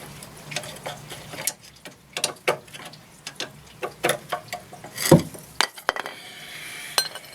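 Metal hand tools and brake caliper parts clinking and tapping against each other in a string of irregular sharp knocks, the loudest about five seconds in.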